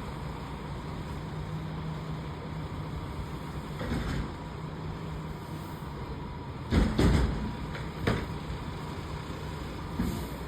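Garbage truck's engine running steadily, with a few loud clunks: one about four seconds in, a heavier cluster about seven seconds in, and another just after.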